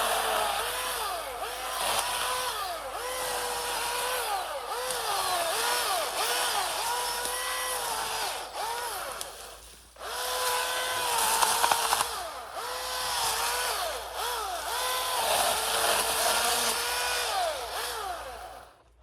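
Milwaukee M18 cordless electric chainsaw cutting brush: a steady motor whine that dips in pitch again and again as the chain bites into wood and recovers. It stops briefly about halfway, runs again, then cuts off just before the end.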